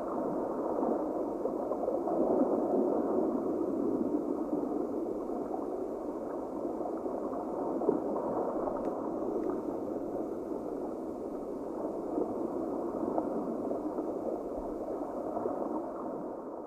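Steady bubbling, gurgling water noise, even throughout with no tune or pitched sound.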